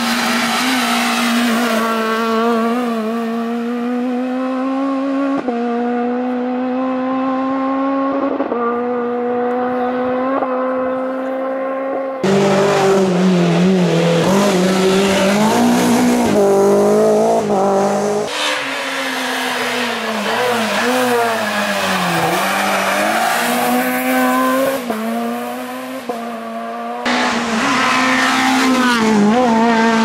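Rally cars at full throttle passing one after another on a tarmac stage. Each engine revs high and upshifts, its pitch dropping and then climbing again, with tyres squealing through the corners.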